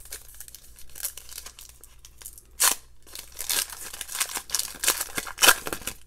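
Trading-card pack wrapper being torn open and crinkled by hand: a run of crackly rips and rustles, loudest about two and a half seconds in and again near the end.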